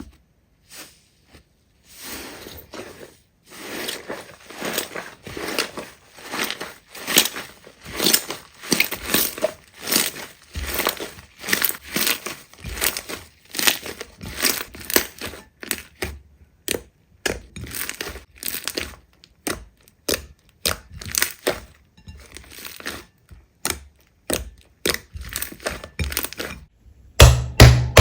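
Slime being squeezed and pressed by hand, making a long run of irregular crackling, crunching pops. Near the end, loud music with a heavy drum beat comes in.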